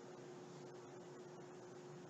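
Near silence: a faint steady hiss with a low, steady hum underneath.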